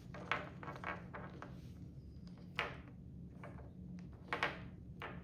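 Light clicks and knocks of plastic toy figures being handled and set down on a surface, about half a dozen taps spread through, the strongest a little over halfway.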